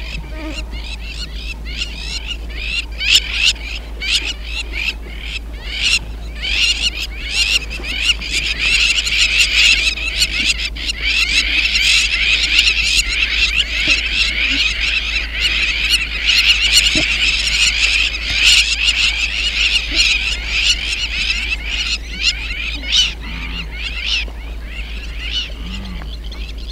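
A flock of birds calling continuously: a dense chorus of many quick, high chirping calls, thickest through the middle and thinning near the end.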